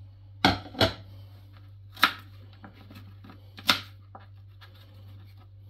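A glass pot lid being set down and a knife cutting raw pumpkin on a plastic cutting board: four sharp clacks with lighter clicks between, over a steady low hum.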